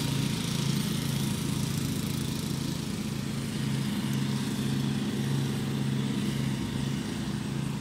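A small engine running steadily, a low hum that swells and fades slightly about once a second.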